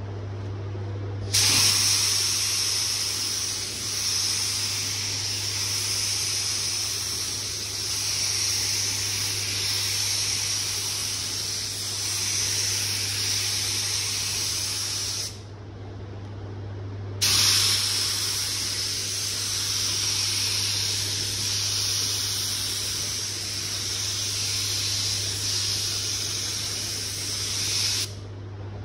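Compressed-air gravity-feed spray gun spraying 2K paint onto car panels: a loud, steady hiss of air atomising the paint in two long passes, the first about fourteen seconds and the second about eleven, with a short break between when the trigger is released. A steady low hum runs underneath.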